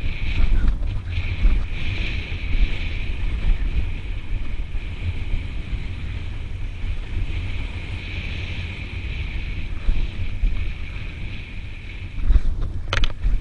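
Wind buffeting the camera microphone over the rumble and rattle of a mountain bike running fast down a rough dirt trail. A short burst of clattering knocks comes about a second before the end, as the bike hits bumps.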